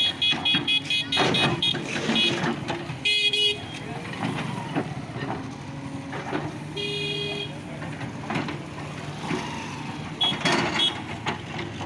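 Vehicle engine running steadily under knocks and clatter, with short high-pitched horn toots: a rapid string of them in the first two seconds, then single toots about three, seven and ten seconds in.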